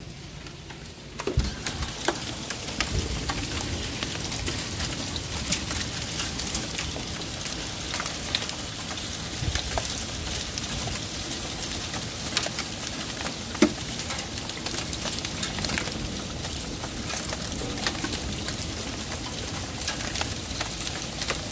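Heavy rain pouring down, a steady hiss full of sharp drop taps and splashes, suddenly louder about a second in.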